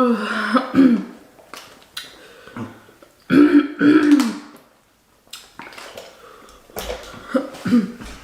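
A person coughing and clearing her throat hard, in loud voiced pairs at the start and about three and a half seconds in, then more weakly near the end: spicy seafood-boil sauce has gone down the wrong way and is burning her throat.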